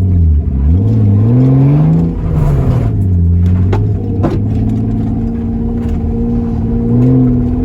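Car engine revving. The pitch dips just after the start, climbs over about two seconds, then holds steady, with a few sharp clicks around the middle.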